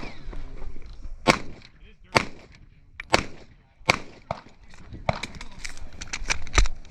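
Airsoft pistol firing, with sharp single shots about a second apart at first, then a quicker string of shots near the end.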